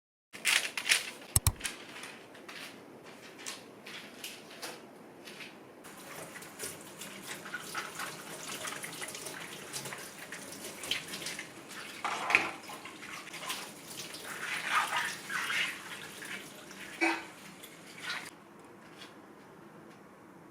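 Water running at a sink or tap, with scattered clinks and knocks of things being handled.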